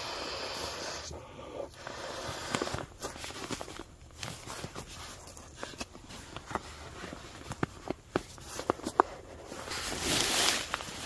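Nylon fabric rustling and swishing as a camping pillow is worked out of its stuff sack and handled, with scattered small clicks and taps. A longer swish of fabric comes near the end as the pillow goes into the hammock.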